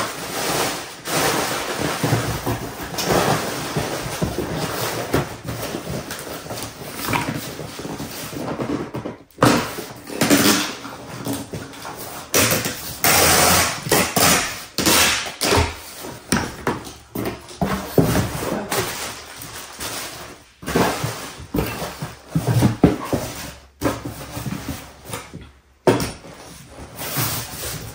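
Packing tape pulled off a handheld tape gun to seal a cardboard box: several long, noisy tearing strips, with the box handled and knocked on the table between them.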